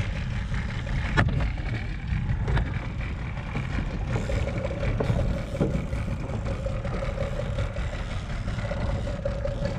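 Small outboard motor running steadily at trolling speed, with water rushing past the hull and a few short knocks, the sharpest about a second in.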